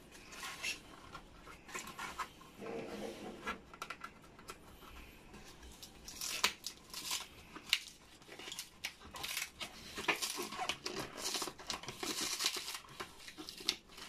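Clear plastic wrap and packing tape on a cardboard-wrapped parcel crinkling, rustling and tearing as hands pick and pull at it, in irregular crackles and clicks that grow busier about halfway through.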